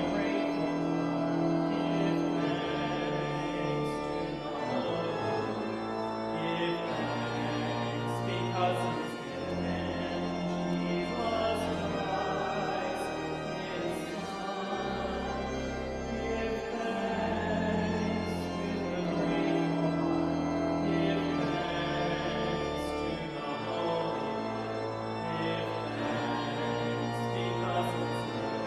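A congregation singing a hymn together over sustained organ chords, the bass notes held and changing step by step.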